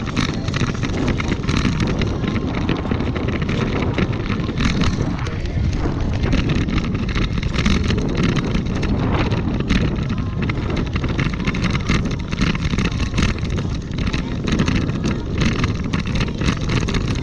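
Wind buffeting the microphone of a handlebar-mounted camera while riding over a gravel path, with a steady low rumble and frequent small rattles and jolts from the ride.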